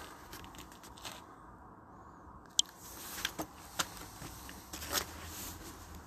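Handling noise from a phone held in the hand: scattered clicks and rustles, with one sharp click about two and a half seconds in.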